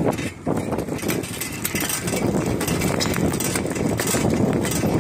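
Wind rushing over the microphone and tyres rolling on asphalt while riding a bicycle, with frequent small clicks and rattles from the bike.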